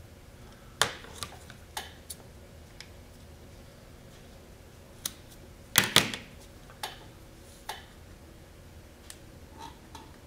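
Scattered clicks and knocks of hand work on a workbench as tools and a small carbon fibre landing gear part are handled, with a few light taps about a second in and the loudest cluster about six seconds in as the scissors are handled.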